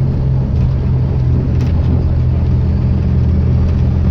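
Diesel engine of a preserved bus running steadily under way, with a faint high turbocharger whistle over the low engine drone.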